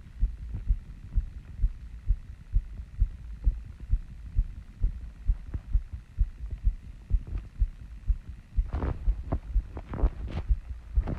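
A human heartbeat picked up close against the chest, a steady run of low thumps at about a beat and a half per second, still raised after running and squats. A breath sounds about nine seconds in.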